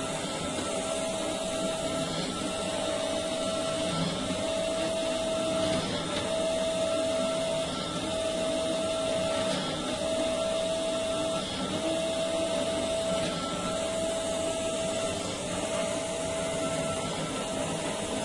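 Automatic cotton lamp wick making machine running: a steady mechanical noise with a tone that sounds for over a second and repeats about every two seconds, in time with the machine's working cycle.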